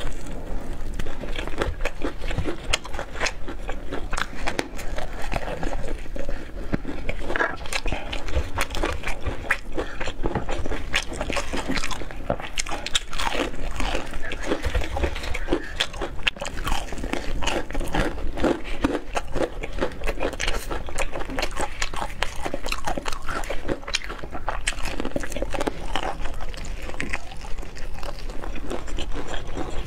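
Crispy breaded fried chicken pieces being bitten and chewed, close-miked, with dense crunching of the coating throughout.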